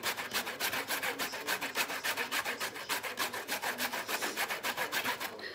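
Horseradish root grated by hand on a stainless steel box grater: fast, even rasping strokes, about five a second.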